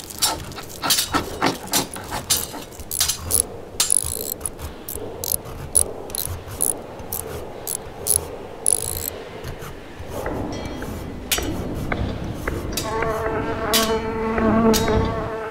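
Quick, irregular scratching and clicking of a scalpel scraping plaster off a wall. In the last few seconds a steady held tone comes in beneath it.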